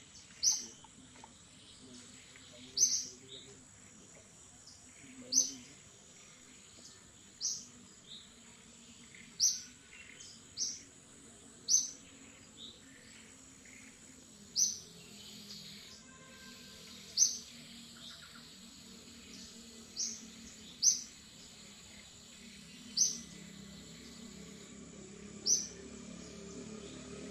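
A bird repeats a short, sharp, high chirp about every one to three seconds, around a dozen times. Beneath it runs a faint, steady high whine.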